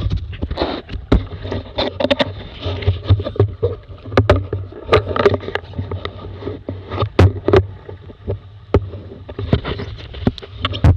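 Laser sailing dinghy's hull slapping and splashing through choppy waves at speed, with irregular sharp knocks and bangs on the hull and a steady low wind rumble on the microphone.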